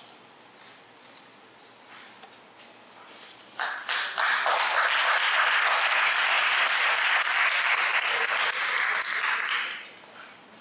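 Audience applauding. The applause starts about three and a half seconds in, holds steady for about six seconds and dies away near the end.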